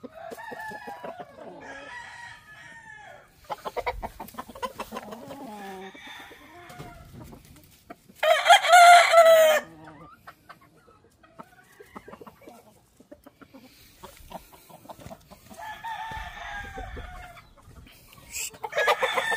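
Roosters crowing, one loud crow lasting about a second and a half about eight seconds in and others fainter around it, with chickens clucking in between.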